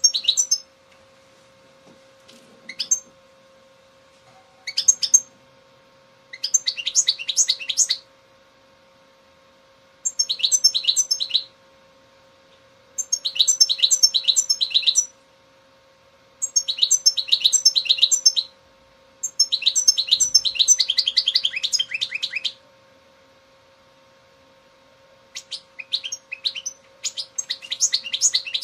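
European goldfinch singing: about nine phrases of rapid twittering and trills, each one to three seconds long with short pauses between, the later phrases longer and denser. A faint steady hum runs underneath.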